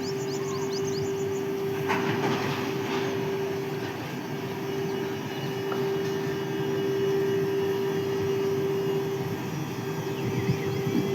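WAG-12B electric freight locomotive moving off, with a steady electrical hum throughout and a brief noisy rattle about two seconds in. Birds chirp in the first second or so.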